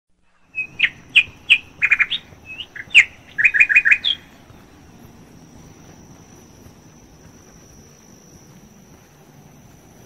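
A small bird singing: a quick run of sharp chirps and short trills for about the first four seconds, then it stops. A faint, steady high-pitched whine carries on underneath.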